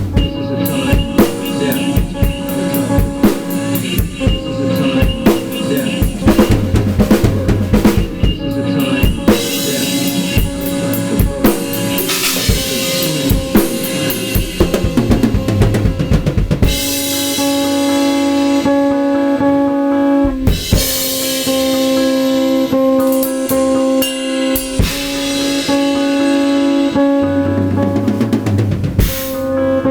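Drum kit improvisation on a Gretsch and Ludwig kit with Paiste cymbals: busy bass drum, snare and rimshot hits with cymbal wash. Underneath runs a riff of held pitched notes that comes forward about halfway through, as the drumming thins out.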